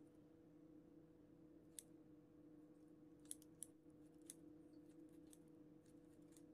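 Kitchen scissors snipping skin and fat off raw chicken thighs: a few faint, sharp snips, the clearest about two seconds in and three more between three and four and a half seconds in, over a steady low hum.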